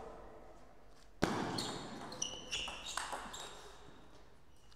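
A short table tennis rally: a sharp knock about a second in, the loudest sound, then the ball clicking off bats and table about five times in two seconds, each hit with a brief high ping.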